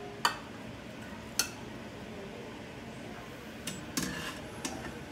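A metal slotted spoon clinking against cookware as a boiled chicken is handled: two sharp clinks in the first second and a half, then a quick run of lighter knocks about four seconds in.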